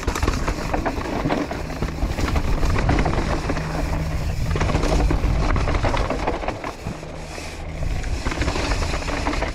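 Mountain bike riding fast down a stony dirt trail: knobby tyres crunching and skittering over loose rocks, the bike rattling over bumps, with heavy wind rumble on the microphone. It eases briefly about seven seconds in.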